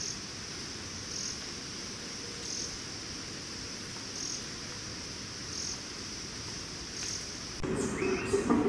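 A shrill, steady chorus of forest insects, swelling slightly about every second and a half. Music comes in near the end.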